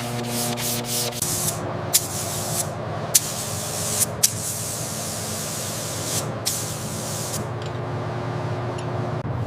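A steady hissing spray of air or liquid, growing stronger about a second in, with a few sharp clicks and a low steady hum beneath it.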